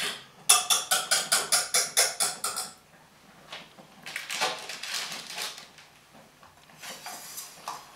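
A metal utensil clinking quickly against a small saucepan holding thick cooked cherry sauce, about five sharp strikes a second for a couple of seconds, then softer scraping and handling noise.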